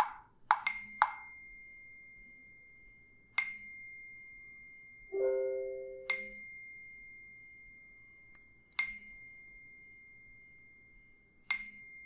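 Sharp, ringing pings repeat about every two and a half seconds over a steady high ringing tone. There are a few quick clicks in the first second and a short, lower chime about five seconds in.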